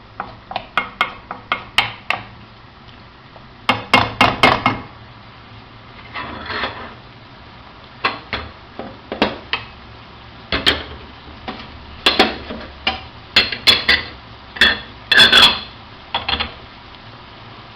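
Repeated sharp knocks and clatter of kitchen utensils on cookware, coming in quick runs of several strikes with short pauses between.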